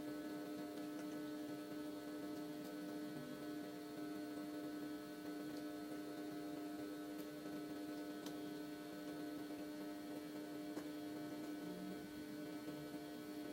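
Steady electrical hum with a few faint clicks.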